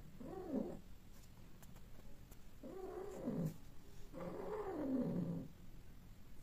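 Persian cat giving three low, drawn-out yowls that fall in pitch, one short and then two longer, during mating.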